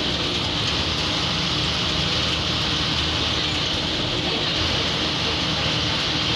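MSRTC bus's diesel engine running steadily with the bus under way, heard from inside the driver's cabin, with a constant hiss of road and wind noise over the engine hum.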